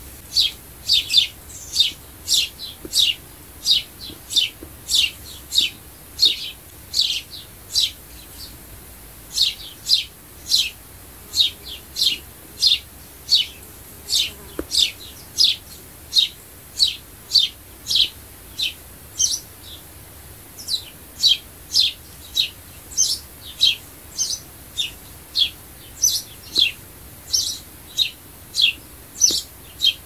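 Sparrow chirping: a long series of loud, short chirps, one or two a second, each dropping in pitch, with a brief pause about eight seconds in.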